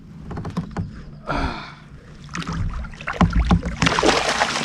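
Water sloshing and splashing around a kayak, with scattered knocks on the hull and a louder splash near the end.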